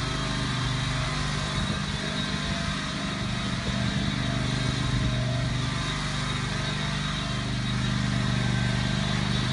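Engine of a 2013 Exmark S-Series zero-turn riding mower running at a steady, even speed as the mower is driven across the grass.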